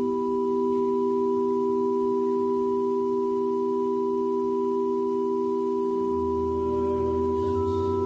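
A held chord of several steady pure tones that starts abruptly. A low hum joins about six seconds in, and another higher tone comes in near the end.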